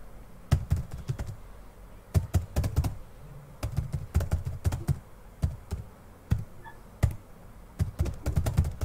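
Typing on a computer keyboard: quick runs of keystroke clicks in uneven bursts, with short pauses between them.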